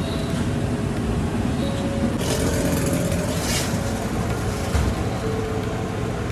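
Steady road-traffic rumble, with a hiss rising over it from about two to three and a half seconds in.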